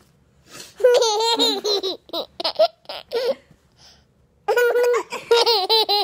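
A 20-month-old toddler laughing in two high-pitched bouts, the second starting about four and a half seconds in.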